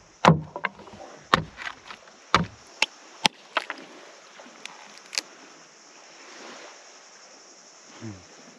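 Small hatchet chopping into a green coconut: three heavy chops about a second apart, then several lighter, sharper taps as the husk is cut open.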